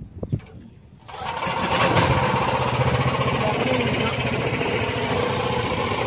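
A small boat's engine opening up about a second in, then running steadily as the boat gets under way, with wind buffeting the microphone.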